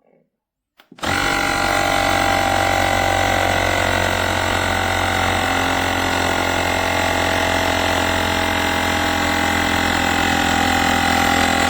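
Battery-powered portable electric air compressor switching on about a second in and running steadily, a loud motor-and-pump drone with a low hum and a steady whine.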